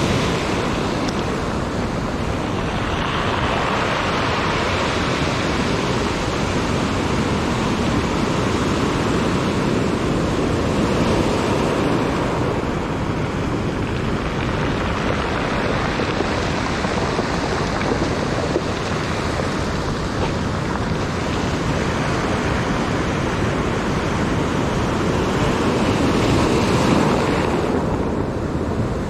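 Ocean surf breaking and washing up a beach as a steady rush with slow swells, with wind blowing on the microphone.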